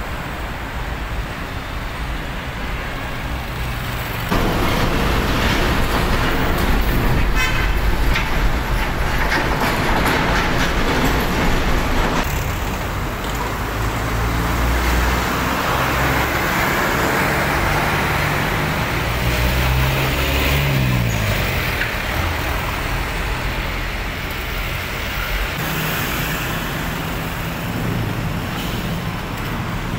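Heavy diesel trucks, an Isuzu Giga and a DAF CF, running past at close range amid street traffic, getting louder about four seconds in. An engine's pitch drops around twenty seconds in.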